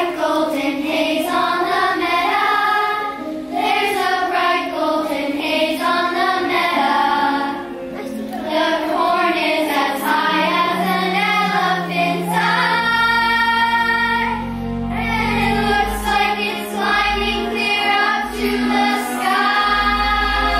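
A children's choir singing on stage. About two-thirds of the way in, an instrumental accompaniment with a deep bass line comes in under the voices.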